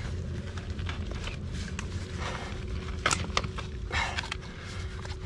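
Orange PVC drain pipe with rubber couplings being shoved and worked into place in a trench: scattered scrapes and knocks of plastic on grit and soil, the sharpest about three seconds in, over a steady low hum.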